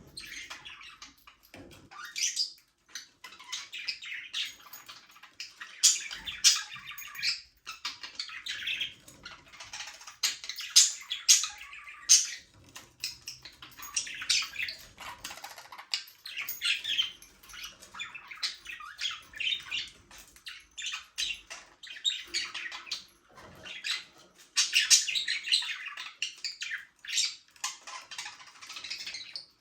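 A flock of budgerigars chattering and warbling, with rapid chirps and frequent sharp squawks overlapping without pause.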